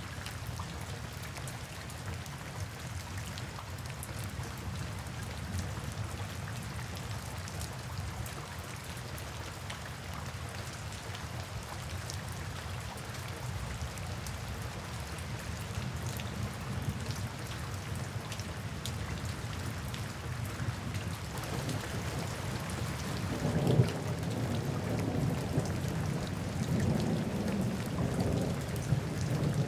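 Steady rain falling, with low rolling thunder building over the second half and loudest about two-thirds of the way through.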